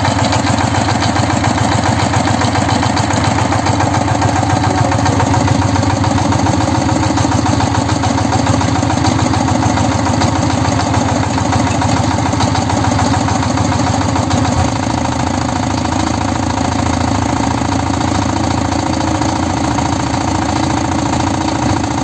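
Kirloskar MegaT 15 power tiller's single-cylinder diesel engine idling steadily, with a slight drop in level and a small change in its note about two-thirds of the way through.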